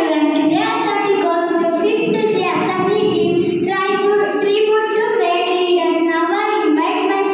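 A young girl singing solo into a microphone, holding long notes and gliding between them.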